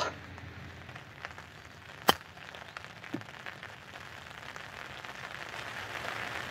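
A wedge striking a golf ball on a short chip shot: one sharp click about two seconds in, with a few fainter clicks after it, over a steady patter of light rain.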